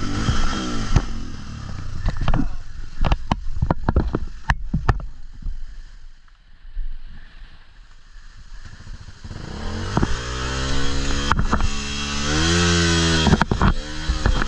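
Motorcycle engine revving up and down under load, taking hold about two-thirds of the way in after a quieter lull. Before that, scattered clattering knocks, as of the bike and rocks being worked over rough ground.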